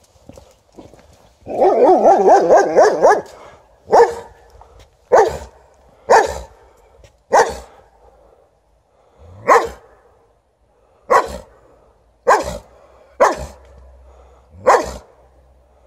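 White Swiss Shepherd barking: a burst of rapid barking for about a second and a half, then about nine single, loud barks at uneven gaps of roughly a second.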